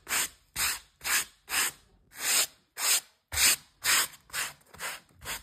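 Bristle brush stroking over the plush fabric coat of a hobby horse: brisk brushing strokes, about two a second, each a short hiss.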